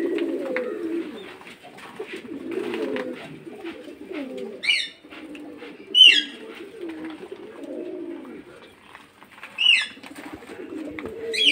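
Several white fantail pigeons cooing continuously in low, overlapping warbles. Four short, sharp high chirps cut through, the loudest about six seconds in.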